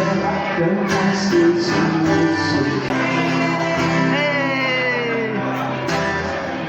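Music with singing and guitar.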